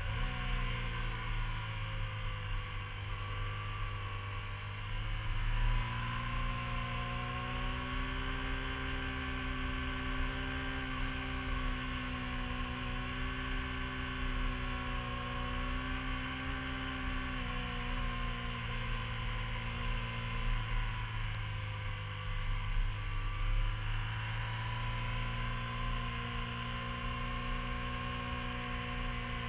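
Sport motorcycle engine running under load as it is ridden through curves, its note climbing about five seconds in, easing off around seventeen seconds and climbing again a few seconds later, over a low wind rumble.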